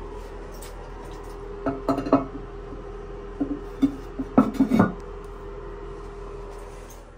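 Porcelain toilet tank lid being set back onto the tank: a few clinks and knocks of ceramic on ceramic about two seconds in, then a louder run of them between about three and a half and five seconds in, over a steady low hum.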